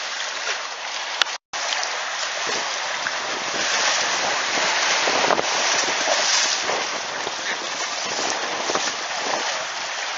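Shallow seawater splashing and sloshing as bulls wade out of the sea, over a steady wash of small waves. The sound drops out for a moment with a click about a second and a half in.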